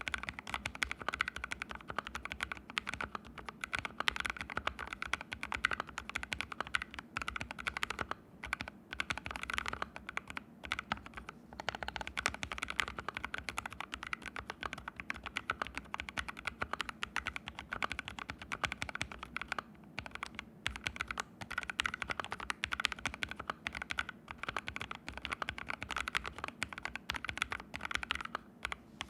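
Mechanical keyboard with fully lubed Haimu Sea Salt switches (ABKO AR61) typed on quickly and continuously, a dense run of key clicks broken by a few short pauses. It sits directly on a bare floor with no desk pad under it.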